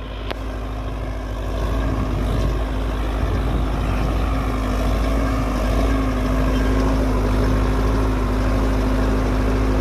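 Sonalika Tiger 55 DI tractor's diesel engine running steadily under load while pulling a spring-tine cultivator through the soil. It gets a little louder over the first two seconds, then holds steady.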